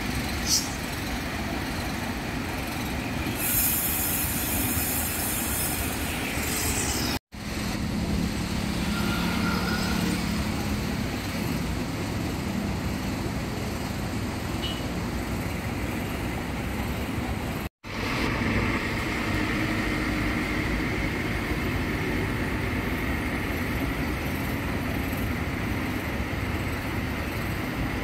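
Diesel coach engine running amid bus-terminal vehicle noise, with a loud hiss about four seconds in.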